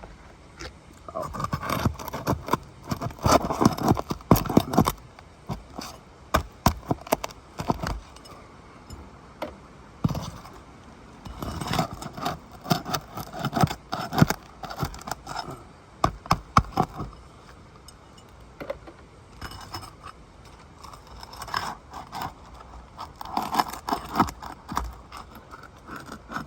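A metal shingle-removal tool scraping and clicking under asphalt shingles as roofing nails are worked loose, in irregular clusters of sharp metallic clicks and scrapes.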